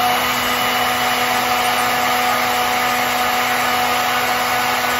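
Handheld hair dryer running steadily on its coolest setting, a constant rush of air over a steady motor hum.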